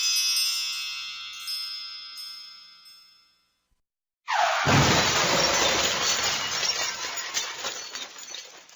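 A bright chime ringing out and fading over the first three seconds. After a short silence, a sudden crash of breaking glass, with shards tinkling and clattering as it dies away over about four seconds.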